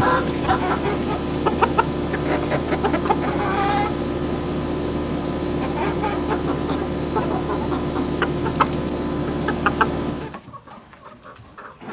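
A mixed flock of backyard chickens, silkies among them, clucking and calling over a steady hum. A little after ten seconds the sound cuts to a much quieter background with a few light knocks.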